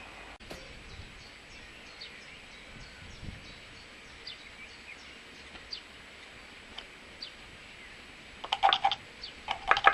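Small birds chirping faintly now and then over a steady background hiss. Near the end comes a quick cluster of sharp knocks and clatters, the loudest sounds here.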